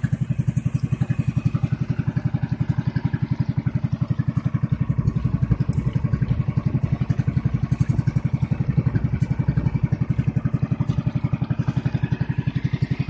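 Small engine of a motorized outrigger boat running at a steady speed, an even, rapid chugging with no change in pace.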